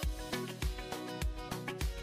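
Background music with a steady beat: a low drum hits a little under twice a second under a pitched melody.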